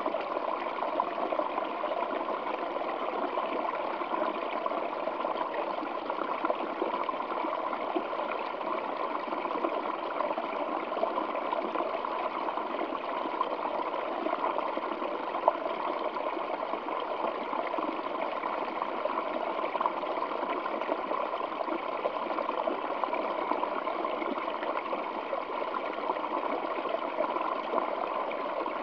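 Waterfall flowing over rocks: a steady, even rush of splashing water with little deep rumble.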